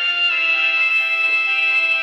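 Mobile phone ringtone melody: sustained electronic notes with many harmonics that glide from pitch to pitch, the top note sliding down a little about a third of a second in while lower notes change beneath it.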